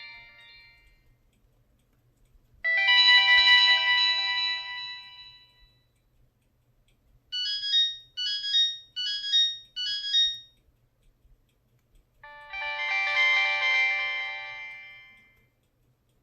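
Kyocera Blade KX424 cell phone playing ringtone previews: a bright chiming chord that rings and fades, then a short phrase of beeping notes repeated four times, then another chiming chord fading out.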